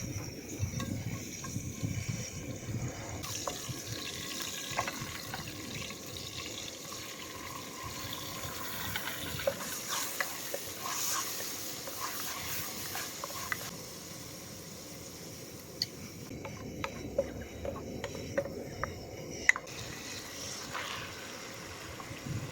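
Water sloshing and splashing, with scattered light clicks and clinks of cookware.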